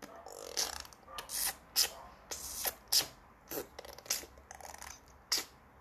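A string of short, sharp sound-effect noises at irregular intervals, several with a quick falling pitch; a very bad effect.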